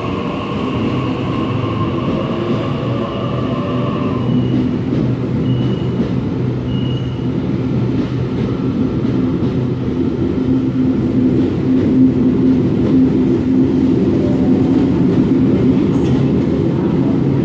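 Sydney Trains Waratah double-deck electric train departing an underground platform, its motors and wheels running steadily and growing louder as it gathers speed. A high whine sounds over it for the first four seconds, then stops.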